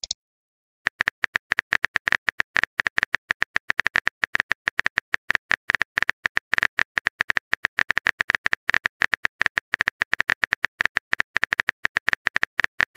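Keyboard typing sound effect: a rapid, uneven run of sharp key clicks, several a second, starting about a second in and going on almost without pause.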